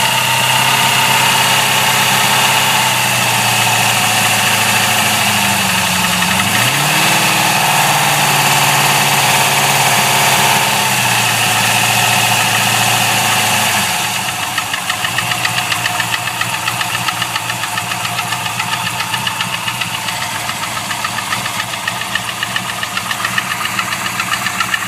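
LS1 5.7-litre V8 engine idling with a rapid, even knock that the owner suspects is a failing gudgeon (wrist) pin. The idle rises a little about a quarter of the way in. About halfway through, the low hum fades and the quick knocking pulses stand out plainly.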